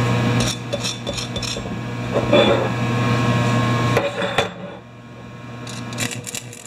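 A steady welding hum cuts off about half a second in, followed by scattered taps and scrapes on metal from hand work on a fresh weld.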